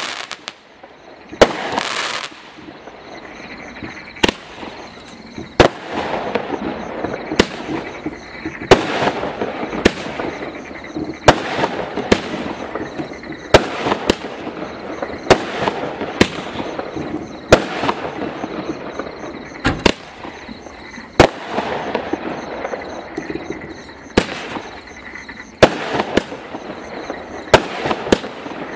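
A Tangled Web firework cake firing shot after shot, a sharp bang a little over once a second at uneven intervals, with steady crackling from the bursting stars between the bangs.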